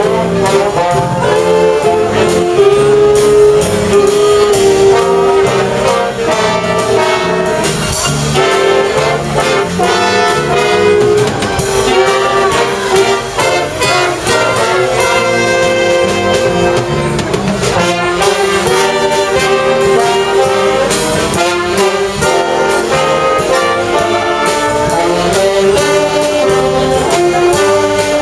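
A jazz big band playing live: saxophones, trombones and trumpets in full ensemble over a steady beat.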